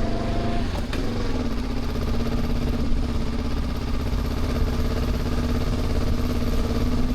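Honda CL500's parallel-twin engine running steadily under way, with a brief change in pitch about a second in.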